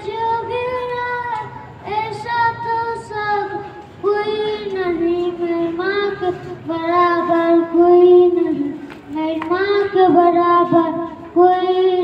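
A young boy singing solo into a handheld microphone: a slow melody of long held notes, in phrases with short breaths between them.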